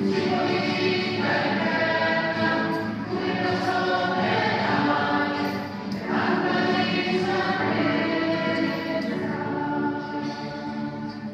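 Parish church choir singing a hymn in harmony, sustained sung notes, growing a little quieter near the end.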